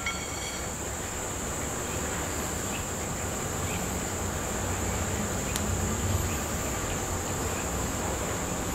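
A short metallic ring as the steel 2MT taper seats in the rotary table's Morse taper centre hole, then quiet handling as the taper is turned in the socket to test the fit of its blackened surface. A steady high insect buzz runs underneath throughout, with one sharp tick about five and a half seconds in.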